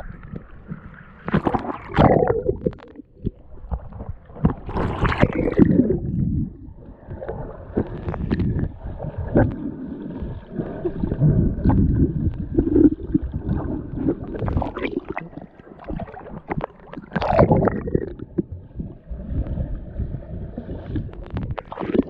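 River water sloshing and gurgling close to the microphone in irregular surges, with several louder swells.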